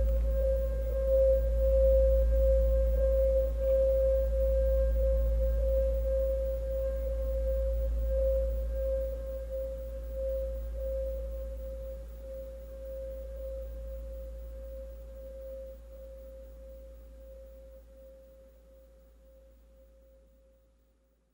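A steady pure ringing tone from the performance's soundtrack, gently pulsing, over a deep low hum. It fades slowly and evenly away to silence by the end.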